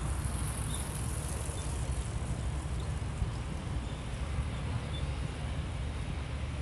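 Outdoor city street ambience: a steady low rumble with no distinct events.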